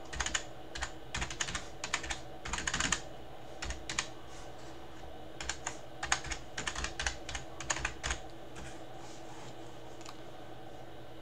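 Typing on a computer keyboard: quick runs of keystrokes in bursts with short pauses, stopping about eight seconds in.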